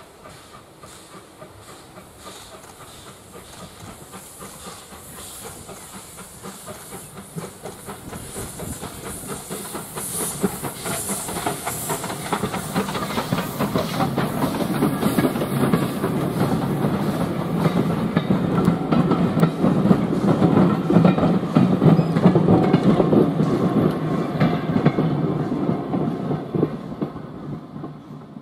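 Steam tank locomotive approaching and passing with hissing steam, then its passenger coaches rumbling and clattering over the rail joints as they go by. It grows steadily louder, peaks as the coaches pass, and fades away near the end.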